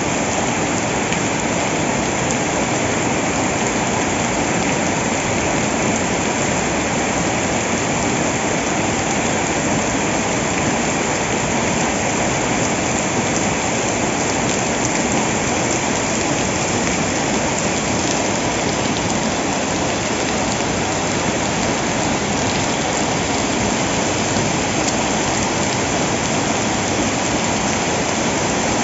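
Heavy rain falling in a loud, steady, unbroken downpour.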